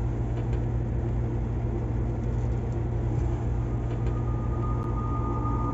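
Double-decker bus engine running at a steady idle, a constant low hum heard from the driver's cab. About four seconds in, a faint steady high tone comes in over it.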